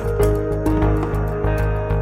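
Background music: gentle instrumental with sustained notes over a steady beat.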